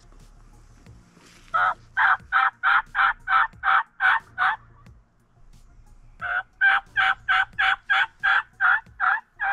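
Turkey hen yelping, loud and close: two runs of evenly spaced yelps, about three a second. The first run has about nine notes. After a pause of about a second and a half, a second run of about ten notes follows.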